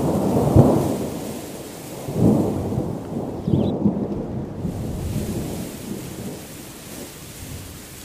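Rolling thunder: a sudden loud rumble at the start, then two more rumbles about two and three and a half seconds in, fading away over a steady hiss of rain.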